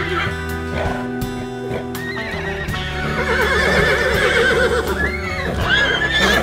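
Horses neighing: a long quavering whinny from about two seconds in, then shorter neighs near the end, over background music with sustained notes.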